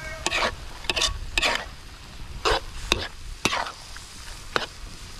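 A metal spatula scrapes and turns food in a large steel wok, with a scrape about every half second and a short pause midway, over a steady sizzle of frying.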